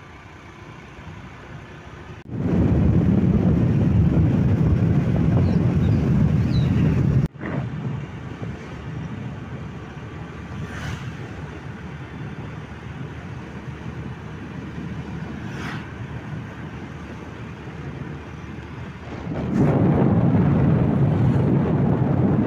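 Wind buffeting the microphone while riding along a road, a heavy low rumble that comes in suddenly about two seconds in, drops abruptly to a quieter steady rush around seven seconds, and comes back loud near the end.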